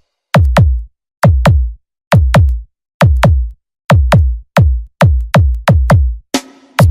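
Electronic battle-remix dance music made of loud, deep drum-machine kicks that drop in pitch, mostly hit in pairs with dead silence between them, for testing a sound system's bass; a noisy sweep rises in near the end.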